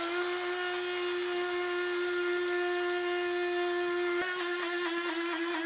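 Electric blade spice grinder running at a steady high-pitched whine, grinding whole coriander and cumin seeds, with a brief hitch about four seconds in.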